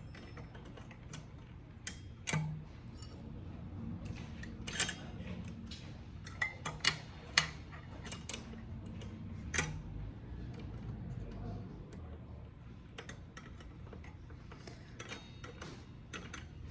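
Scattered small metal clicks and taps as a bolt is fitted and tightened on a trike's rear brake caliper mount, with a few sharper knocks in the first half.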